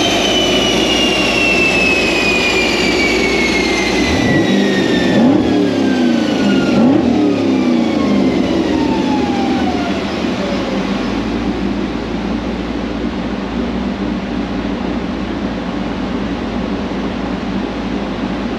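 Camaro V8 on a chassis dyno after a pull: a high whine falls steadily in pitch over about ten seconds as the dyno rollers and drivetrain spin down, with a couple of short engine revs about four to seven seconds in, and the engine running steadily underneath.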